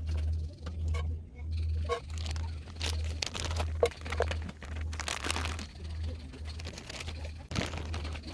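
Crinkling, rustling and sharp clicks of things being handled, over a very low pulsing beat about twice a second.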